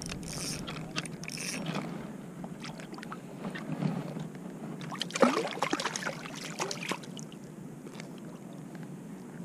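Water sloshing and splashing as a small speckled trout is reeled to the surface and lifted on the line, with a louder flurry of splashes about five seconds in.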